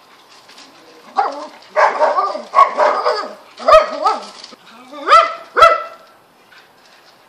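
A dog barking loudly, a quick run of barks lasting about five seconds.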